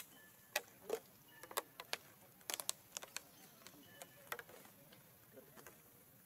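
A run of sharp, irregular clicks and ticks, about fifteen in the first five seconds and then fewer, with a few faint short high chirps between them.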